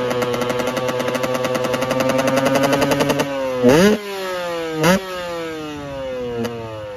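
Husqvarna 125 two-stroke dirt bike engine held at steady revs with a fast, even pulsing beat for about three seconds, then dropped back and blipped three times, the revs falling away after each blip.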